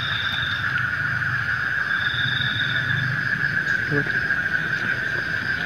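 Night insects, crickets or similar, droning steadily, with a higher trill that comes in twice for about a second.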